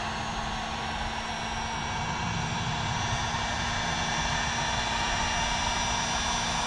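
Electric heat gun running steadily, its fan blowing hot air with an even whoosh over a steady motor hum. It is heating the double-sided tape that holds a bumper diffuser, to soften it.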